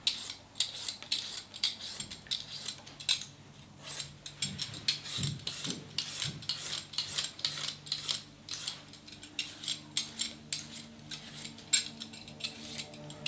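Hand vegetable peeler scraping the skin off a raw potato in quick repeated strokes, each a short rasp of the blade over the potato.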